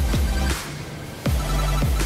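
Background electronic dance music with a deep bass line and heavy kick drums.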